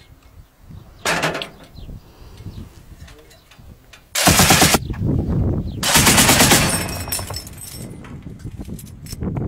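Belt-fed machine gun firing automatic bursts: a short burst about a second in, then two longer, loud bursts around four and six seconds in, with the sound trailing off after each.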